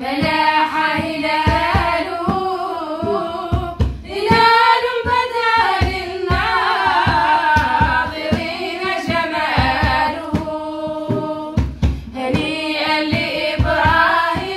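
Several women singing an Arabic devotional poem (qasida) together in unison, with no instruments, over a steady low beat.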